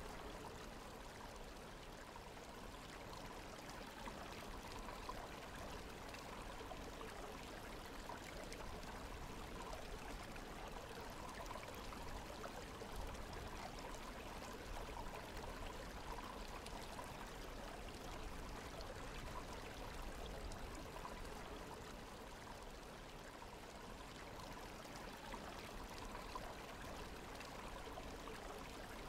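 Waterfall: water rushing and splashing steadily.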